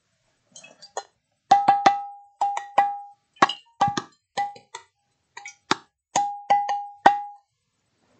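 A glass water drum played by hand: about twenty sharp hits in a quick, uneven rhythm, many of them followed by a short ring that holds at one pitch. The ring is a half-gallon empty glass jug beside the drum resonating in sympathy with it.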